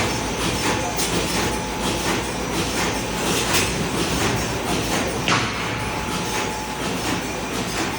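Bonnell spring mattress machine running: a steady mechanical clatter with repeated sharp metallic clicks and knocks at an uneven pace, and a faint thin whine that comes and goes.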